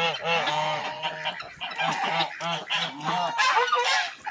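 A flock of backyard poultry calling over one another, with many short overlapping calls.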